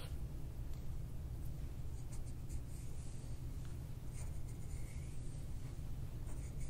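Handheld scraping tool rubbing over hair and scalp around the ear, making soft, irregular scratchy strokes during instrument-assisted soft-tissue work. A steady low hum runs underneath.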